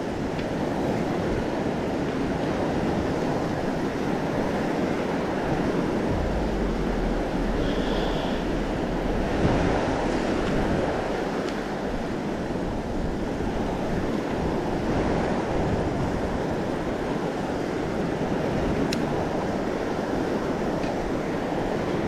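Ocean surf breaking and washing steadily, with wind rumbling on the microphone, stronger for a few seconds near the middle.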